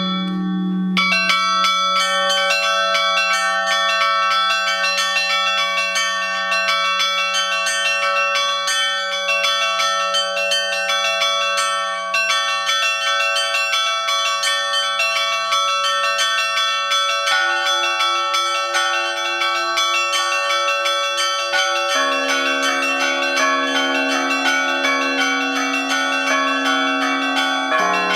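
A full set of Orthodox church bells rung together: small bells struck in a fast continuous peal over the held ring of a large bell. The pattern of the middle bells changes about 17 seconds in and again about 22 seconds in.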